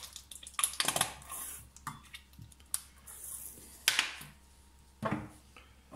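Plastic ketchup squeeze bottle squirting into a small bowl, then handled and set down on a stone countertop: a scatter of short clicks and knocks.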